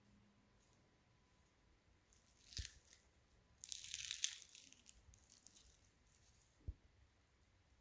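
Crisp baked puff pastry topped with peach slices being torn apart by hand: a short flaky crackle, then a longer crunchy crackle of about a second as the layers break. A faint low thump comes near the end.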